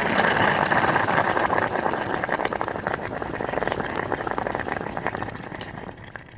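Flameless ration heater reacting with water inside its heater bag, heard close up: a dense fizzing, crackling hiss of the reaction heating the ration pouch. It fades over the last second or so.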